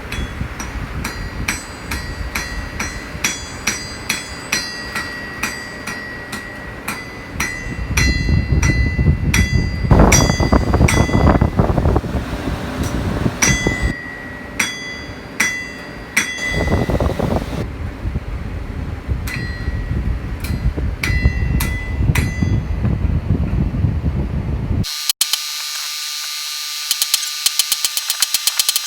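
Hammer blows on a steel anvil, each ringing, about one to two a second, over the hiss of heavy rain that swells loudly twice. Near the end it cuts abruptly to a dense run of clicking ticks.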